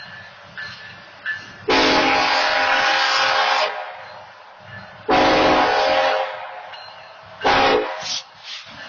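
Diesel locomotive air horn (BNSF engine 9082) sounding the grade-crossing signal. In this stretch come two long blasts and then a short one, part of a repeated long-long-short-long warning for the crossing.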